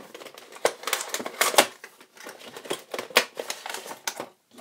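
Cardboard retail box being opened and a clear plastic blister tray pulled out and handled: a run of irregular clicks and crackles of plastic and card.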